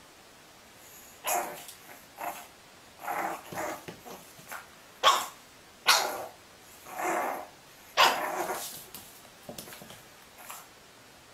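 A dog barking repeatedly in short separate barks, with the two sharpest barks about a second apart midway.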